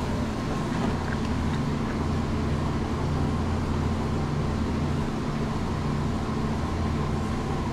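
Steady mechanical drone of a dairy barn's milking system: the vacuum pump running, with a faint regular pulsing about once a second from milking units still attached to cows.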